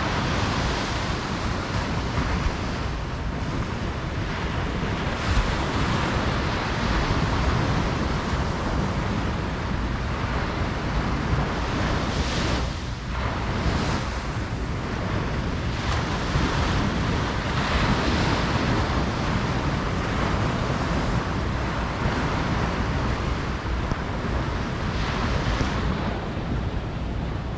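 Ocean waves breaking and washing up on a beach, one surge of surf after another every few seconds over a steady low rumble, with wind buffeting the microphone.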